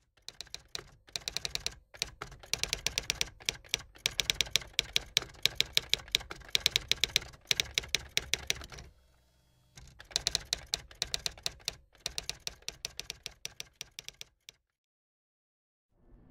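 Rapid runs of sharp mechanical clicks, about ten a second, broken by short pauses, stopping about 14.5 seconds in.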